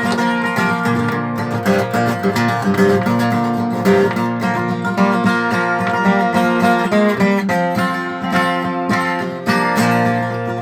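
Acoustic guitar strummed in a steady rhythm, playing an upbeat, lively instrumental break in a gospel song with no singing.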